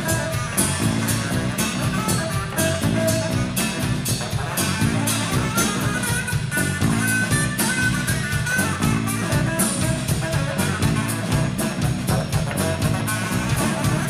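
A live rock band playing an instrumental passage: drum kit keeping a steady beat under electric bass, electric guitar and saxophone.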